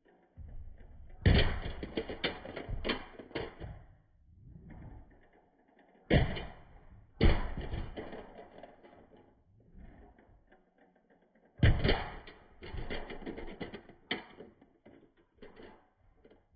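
Toy cars landing on a whiteboard ramp and tumbling over it onto the carpet. Each run starts with a sharp clack and goes on for a second or two as rapid rattling clicks. It happens about a second in, twice in quick succession around six and seven seconds, and again near twelve seconds.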